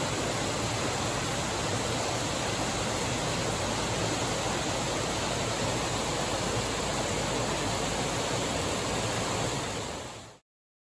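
Waterfall on a rocky mountain creek rushing steadily, fading and cutting off about ten seconds in.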